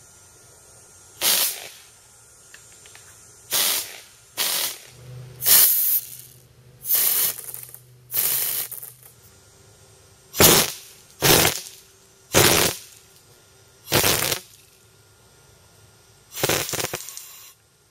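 Homemade PVC 'cloud' airsoft minigun fired in eleven short bursts, each a rush of compressed air through the blower valve that drives a very rapid stream of BBs out the barrel. Each burst lasts about half a second to a second.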